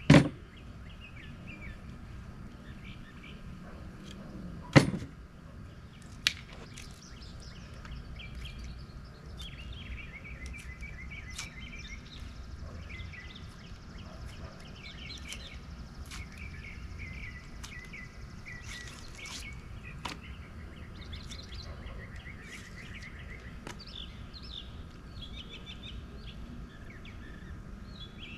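Birds chirping and singing in short repeated phrases, over a steady low rumble. A few sharp knocks cut in, the loudest about five seconds in.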